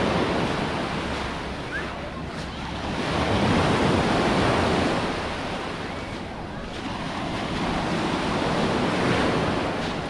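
Small sea waves breaking and washing up a shingly beach, the surf swelling and easing about three times.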